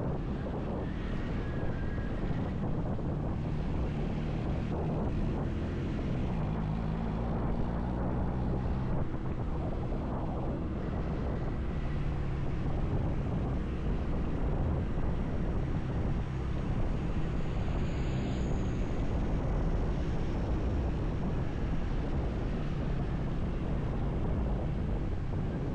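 Motorcycle engine running steadily while riding, its low drone shifting slightly in pitch with the throttle, mixed with wind and road noise on the camera microphone.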